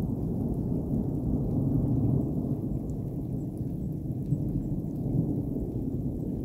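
Rolling thunder from a thunderstorm: a long, low, continuous rumble.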